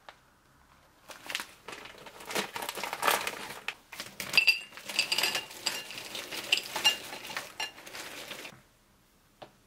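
Frozen mixed seafood (shrimp, squid, mussels) tipped out of a plastic bag onto a ceramic plate: the bag crinkles while the frozen pieces clatter and clink on the plate, then it stops, with one light click near the end.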